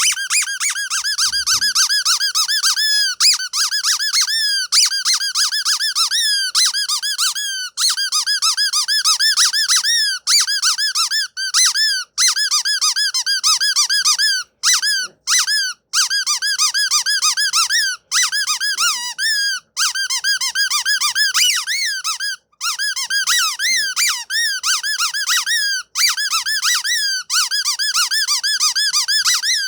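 Rapid, high-pitched squeaking, made of quick chirps that rise and fall in pitch, several a second. It goes on with only a few brief breaks.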